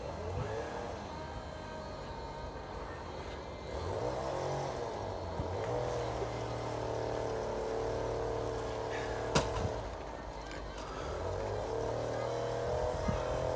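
Petrol lawn mower engine running steadily, its pitch rising about four seconds in and again near the end as it works. A single sharp click comes about nine seconds in.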